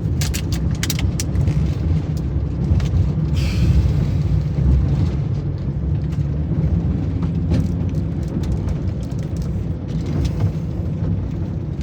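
Steady low rumble of a moving vehicle, with a few light clicks about a second in.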